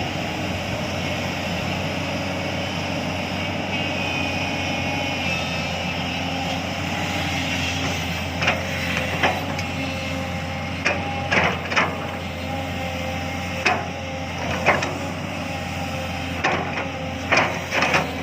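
JCB excavator's diesel engine running steadily. From about halfway through there are about ten sharp knocks.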